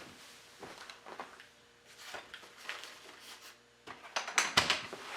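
Small hard objects being handled, with scattered light clicks and knocks and a quick flurry of clatter about four seconds in.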